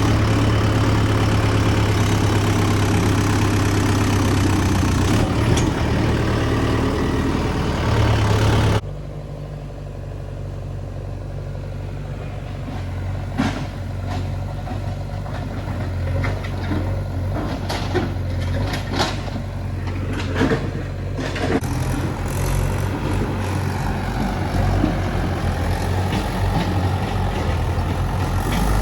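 Diesel engines of a backhoe loader and farm tractor running. The sound changes abruptly about nine seconds in, from a loud steady engine with a deep hum to a quieter one, with a run of sharp knocks and clatters in the middle, like rocks and a metal bucket. The engine grows louder again near the end.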